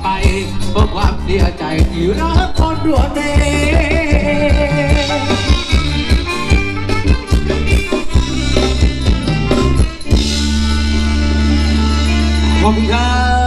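Live Thai ramwong band music played loud: a quick drum beat under melody and singing, which about ten seconds in stops on a long held chord with heavy bass.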